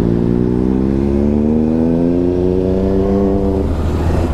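Motorcycle engine accelerating hard through a gear, its pitch rising steadily for about three and a half seconds before breaking off near the end.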